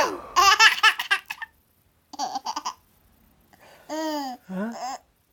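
A ten-month-old baby giggling in three high-pitched bursts of laughter, the first a quick run of short laughs, the later two shorter.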